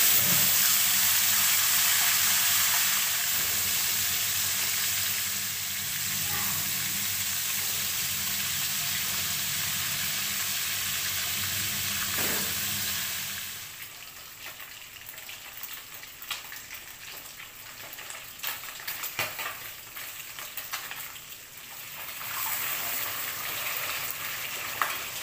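Pieces of tilapia frying in hot oil in an aluminium wok: a loud, steady sizzle that drops to a quieter crackle about halfway through. In the second half a spatula turns the fish, with scattered clicks against the wok.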